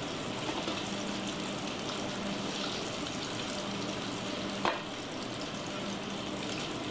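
Battered catfish pieces deep-frying in a pot of hot oil, a steady crackling sizzle. One sharp click about two-thirds of the way through.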